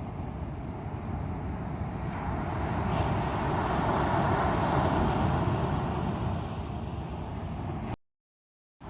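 Strong sea waves breaking and washing on the shore, one wave swelling louder in the middle and easing off. The sound cuts out completely for under a second near the end, then returns.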